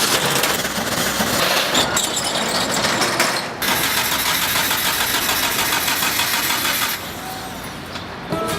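Motor vehicle engine and traffic noise, a dense steady rumble that breaks off briefly a few seconds in and turns quieter near the end.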